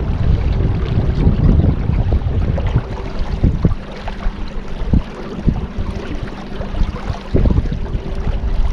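Wind rumbling and buffeting the microphone on a small craft moving over the river, with water noise, a faint steady hum and a few short knocks.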